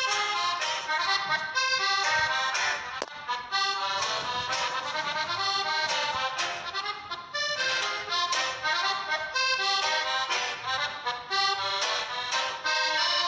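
Lively accordion music, a fast run of melody notes over chords.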